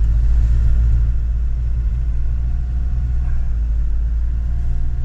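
Steady low rumble of a camper van's engine and road noise, heard inside the cab while driving through town streets.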